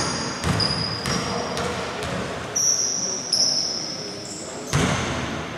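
A basketball bouncing on the wooden floor of a sports hall: several separate thumps roughly a second apart, echoing in the hall.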